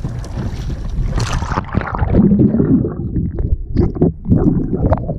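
Water splashing around a camera as it is dipped below the sea surface, then the muffled, uneven bubbling rumble of water heard by the camera underwater.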